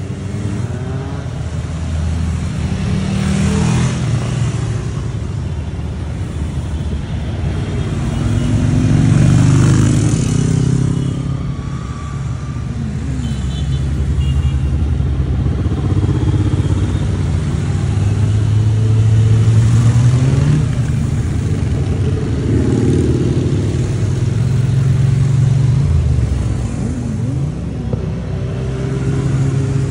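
Motorcycles riding past one after another, their engines rising and falling in pitch as each goes by, loudest about a third and two-thirds of the way through.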